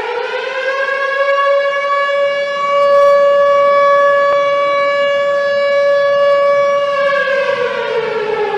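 Civil defense siren winding up to a steady wail, holding one pitch for several seconds, then starting to wind down near the end.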